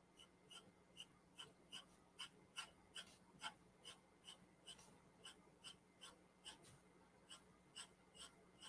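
Graphite pencil hatching on drawing paper: faint, short, even strokes, about two or three a second, laying down shading lines.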